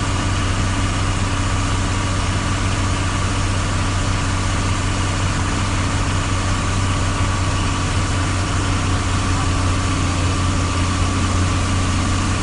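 Fast-flowing floodwater rushing, a loud steady noise with a low hum under it.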